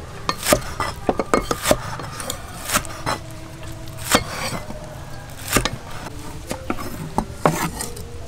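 Cleaver chopping green onions on a wooden chopping board: sharp, irregular knocks of the blade striking the wood.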